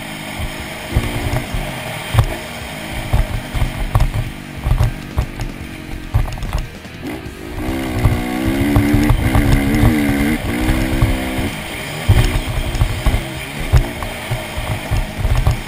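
Motocross dirt bike engine revving up and down as the bike rides the track, the revs climbing most strongly about eight to eleven seconds in, over constant low thumping.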